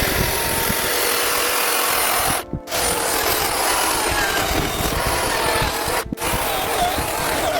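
Chainsaw running and cutting into wood, a loud steady noise broken by two brief drops, about two and a half and six seconds in.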